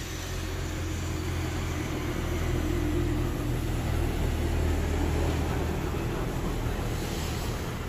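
A heavy goods truck drives past on the highway, its engine and tyres heard as a steady low sound that swells about halfway through and eases off near the end, over general road traffic.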